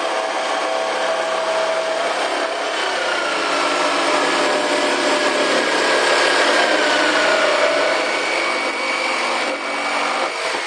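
Power tool cutting: a steady loud grinding noise with a motor whine that wavers in pitch under load, dying down near the end.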